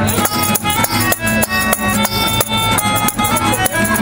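Melodica playing a tune of held notes, with hand percussion shaken on a steady beat of about three strokes a second.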